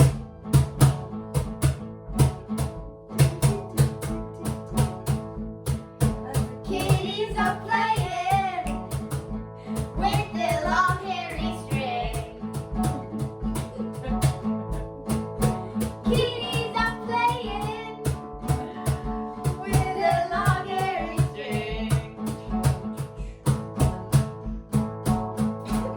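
A song with a steady drum beat and plucked guitar; a high voice sings in phrases from about seven seconds in.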